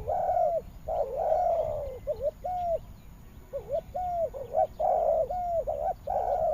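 Spotted dove cooing, a run of short arched coo notes repeated almost without pause, with a few brief gaps.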